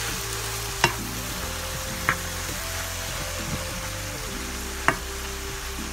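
Kale, mushrooms and garlic sizzling in hot olive oil in a small nonstick wok while being stirred with a wooden spatula, which knocks sharply against the pan three times.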